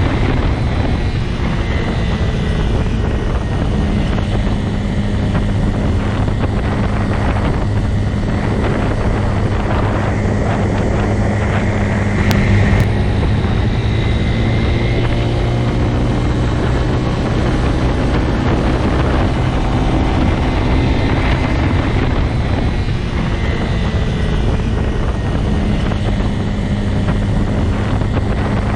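Motorcycle engine running at a steady speed, with wind noise on the microphone.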